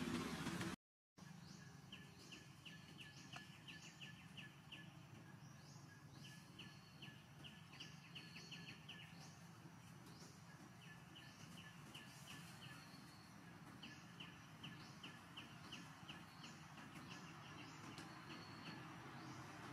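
Faint outdoor forest ambience after a brief cut to silence about a second in: high chirping calls in quick trains of about eight a second, recurring every second or two, with short falling high notes between them, over a faint low hum.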